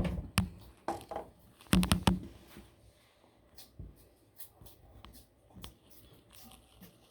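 Light scratching and clicking, with a cluster of louder knocks about two seconds in, then faint scattered ticks.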